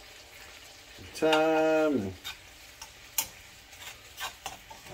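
Butter with garlic and thyme sizzling softly in a skillet while a ribeye is basted, with a few sharp clicks of a metal spoon against the pan.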